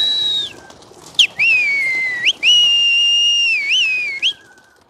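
Pigeon keeper's loud whistling to drive a flock of kish pigeons up into flight: three long held notes. The first is high and falls away at its end, the second drops sharply and slides down before snapping up, and the third holds steady and wavers near its end before stopping.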